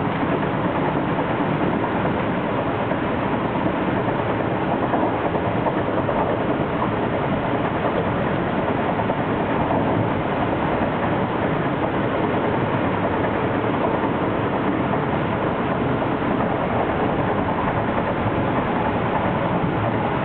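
Metro-North M3 electric multiple-unit train under way, heard aboard: a steady rumble of wheels on rail and running gear, with no horn or sudden events.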